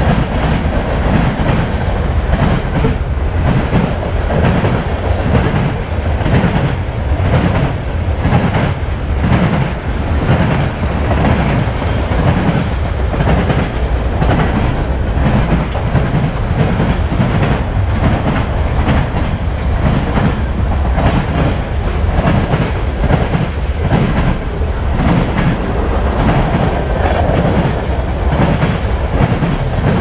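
Manifest freight train's boxcars and covered hopper cars rolling past: a loud, steady rumble with a rhythmic clickety-clack of wheels over the rail joints.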